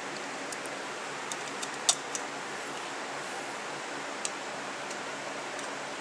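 Steady hiss with a handful of light, sharp clicks, the loudest about two seconds in: a small screwdriver and hands working at a Carter six-screw mechanical fuel pump, pressing the diaphragm in and lining up its screws.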